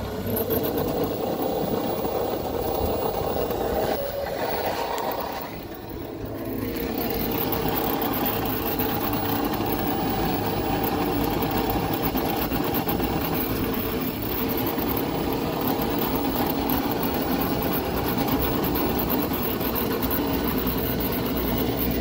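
Electric 1998 Club Car DS golf cart rolling along with a steady whining drone from its rear transaxle, which fades briefly about five seconds in and then comes back. The noise is worst at light or no load, and the owner traces it to the differential transaxle.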